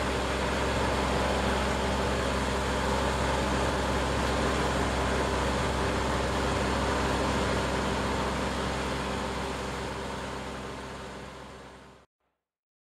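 Steady drone of a farm tractor's engine working the flooded paddy, with a fixed low hum under a broad noise. It fades out over the last few seconds and gives way to silence.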